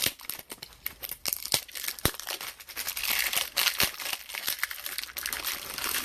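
Foil trading-card pack wrapper crinkling and being torn open, with quick sharp clicks and crackles from handling.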